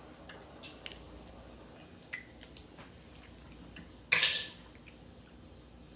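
Eating and handling sounds from a seafood boil: scattered small clicks and wet squishes of sauce-covered seafood being picked apart and chewed, with one short, louder noisy crack or rustle about four seconds in.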